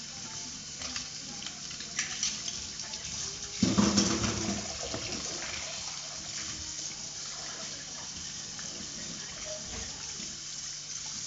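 Kitchen tap running into a stainless steel sink while dishes are washed by hand: a steady rush of water with a few light knocks, briefly louder about four seconds in.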